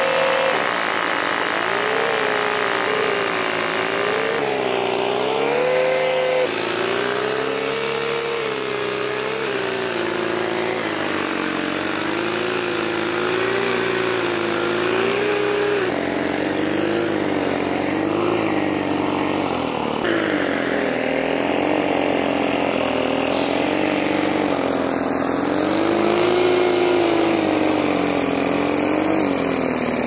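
Small engine driving a rice threshing machine, running steadily under load, its pitch wavering up and down every second or two as bundles of rice stalks are fed into the drum.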